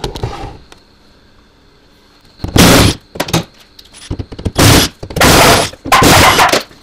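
Cordless impact driver hammering in several short bursts in the second half, backing out the Torx screws that hold the Chevy Volt battery pack's cover. A single knock is heard right at the start.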